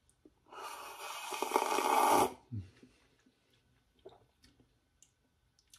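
A slurping sip of coffee lasting about two seconds and growing louder, followed by a few faint mouth clicks.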